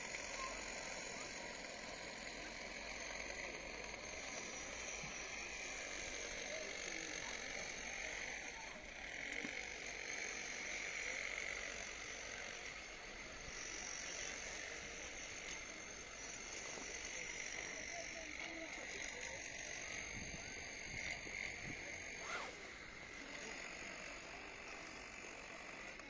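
Steady outdoor ambience: a constant hiss with faint distant voices and small chirps, and a single sharp click about 22 seconds in.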